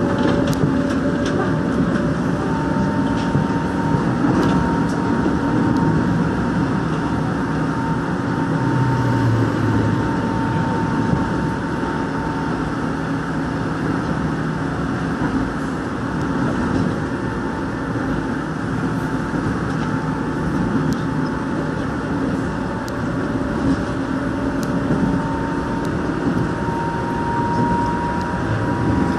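Seoul Line 1 rheostat-controlled electric train running at speed, heard from inside the carriage: a steady rumble of wheels on rail with a hum from the running gear and a few faint clicks.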